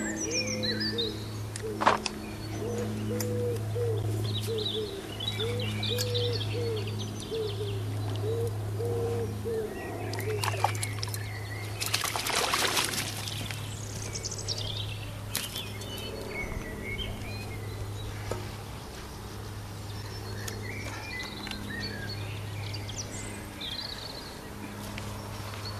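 Birds singing and chirping around a pond, with a brief burst of water splashing about twelve seconds in as a hooked fish thrashes in a landing net. A steady low hum runs underneath, cutting in and out.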